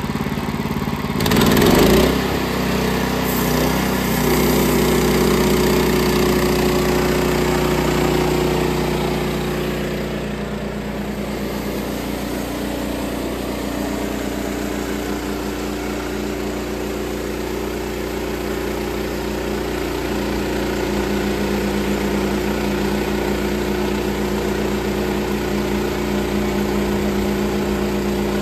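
Sawmill engine running steadily while boards are milled, with a brief louder burst of noise about a second and a half in.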